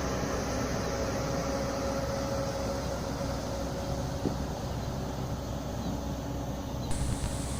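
Train running past with a steady rumble and a faint steady whine.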